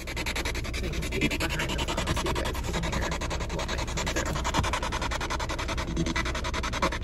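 SB7 Spirit Box sweeping through radio frequencies: hissing static chopped into rapid, even pulses, about ten a second, with brief scraps of broadcast sound.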